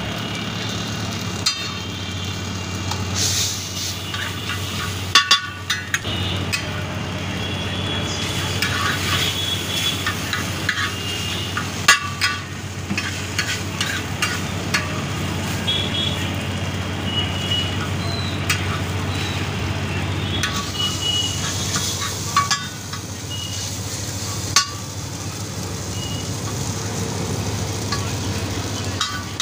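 Noodles and a roti frying on a large flat iron griddle (tawa), with a metal spatula clicking and scraping against the pan now and then as the noodles are stirred. A steady low hum runs underneath.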